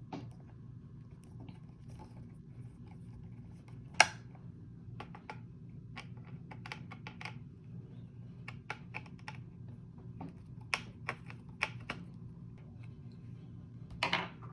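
Small irregular clicks and ticks of a screwdriver working the screws out of a Dell Inspiron 3521 laptop's plastic access panel, with one sharper knock about four seconds in, over a steady low hum.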